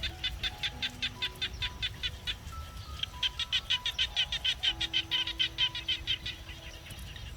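A bird calling in a rapid series of high chirps, about six or seven a second, in two runs with a short break about two seconds in. Soft background music with sustained notes plays underneath.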